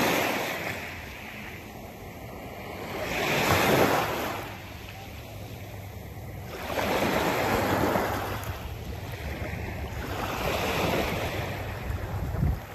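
Small waves breaking and washing up a pebble beach, the surf swelling and falling about every three to four seconds.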